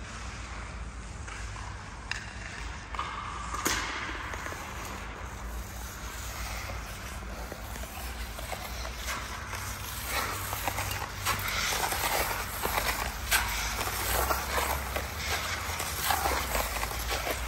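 Irregular footsteps, scuffs and small knocks on a concrete floor, over a low steady rumble, getting a little busier in the second half.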